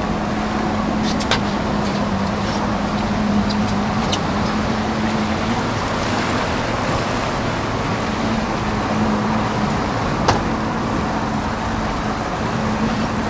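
A fishing boat's motor running steadily, a constant low hum over the rush of wind and water. A couple of sharp clicks are heard, one about a second in and one near the end.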